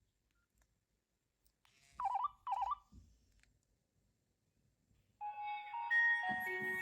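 A Nokia N96 phone plays two short warbling electronic beeps through its speakers. After a pause of a couple of seconds, a ringtone melody with bass starts playing.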